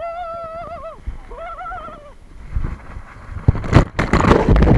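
A high voice cries out twice in long, wavering calls while riding a water slide, then water rushing down the slide builds into loud splashing and churning as the rider plunges into the pool near the end.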